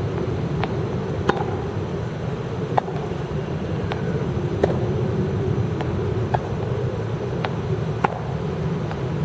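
Tennis balls being hit with a racket and bouncing on the court, sharp pops coming every half second to a second in a steady drill rhythm, over a steady low background rumble.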